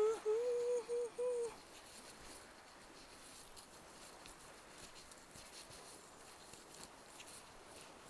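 A person humming a few short, steady notes, stopping after about a second and a half, followed by faint footsteps and light taps on a dirt trail.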